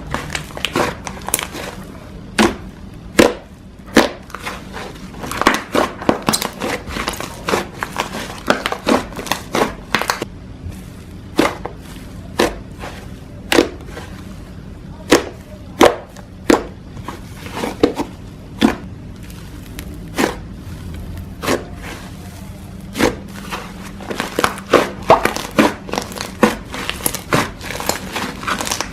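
Slime being squeezed and poked by hand, making an irregular string of sharp pops and clicks, a few each second, coming thicker near the end.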